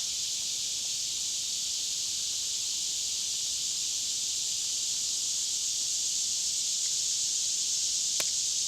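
Steady, high-pitched chorus of summer insects, with one faint click near the end.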